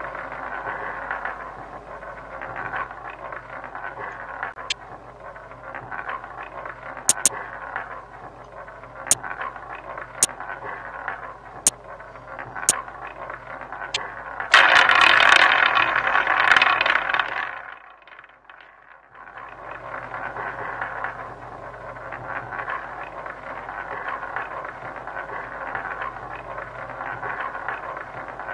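Online roulette game sound effects. A run of sharp clicks as chips are placed on the betting layout sits over a steady hiss of game sound. About halfway through, a louder rushing burst comes as the wheel is spun, then there is a brief dip and the steady hiss resumes.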